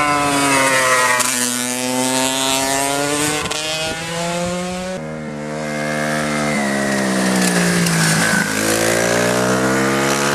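Racing motorcycle engines at high revs climbing a hill, the engine note dipping and then climbing again as the rider works through the bend. About halfway through the sound cuts abruptly to a second motorcycle, whose note also dips and then rises as it approaches.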